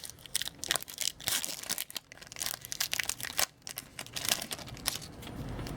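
A hockey card pack wrapper crinkling and tearing open, with irregular crackles and rustles as the pack is handled and the cards are pulled out.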